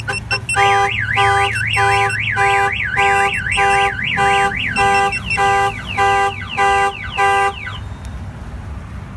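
Clifford 5305X car alarm going off on a Chevy Silverado, set off by opening the door. A fast up-and-down warbling siren sounds with the truck's horn honking in pulses about one and a half times a second. About halfway the siren switches to a different tone pattern, and it all stops shortly before the end.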